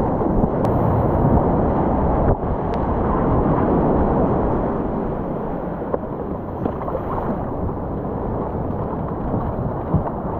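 Steady rush of wind buffeting the camera microphone, mixed with breaking surf and whitewash, as a kayak rides a wave in through the shore break.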